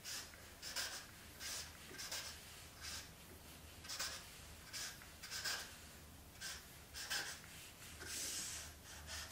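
Felt-tip marker drawing on flip-chart paper: a string of short, scratchy strokes, about two a second, with a longer stroke near the end.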